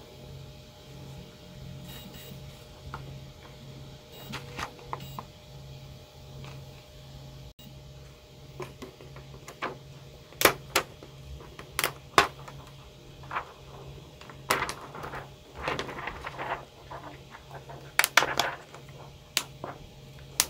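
Thin clear plastic face-shield sheet rustling and clicking as it is handled and pressed onto the pegs of a plastic 3D-printed headband. The clicks and crinkles come irregularly and grow busier and louder in the second half, over a steady low hum.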